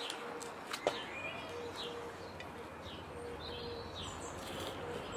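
Garden birds chirping and twittering on and off over a steady outdoor background, with one sharp click about a second in.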